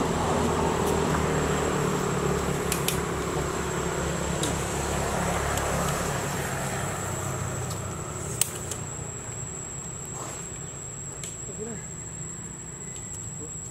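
Insects droning in a steady high-pitched tone over outdoor ambience, with a low rumble that fades away about halfway through and a few sharp clicks, the loudest about eight seconds in.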